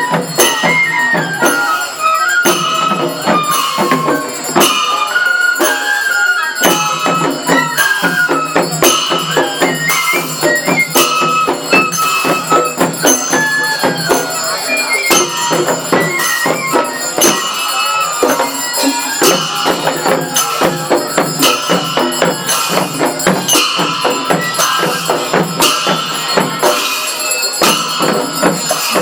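Traditional-style music: a melody stepping up and down over a steady, fast beat of jingling percussion like a tambourine.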